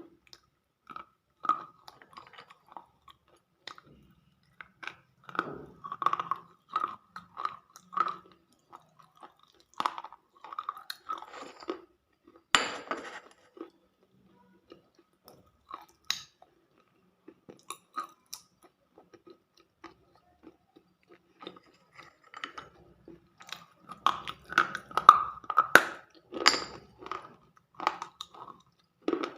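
Close-miked ASMR chewing: a person bites and crunches food in irregular clusters of short crunches with quiet gaps between them. One sharp crack comes about twelve seconds in, and a dense run of crunching comes near the end.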